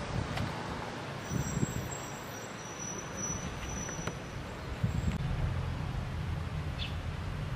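Outdoor ambience: a steady low rumble, with a faint high thin tone held for about two seconds near the start.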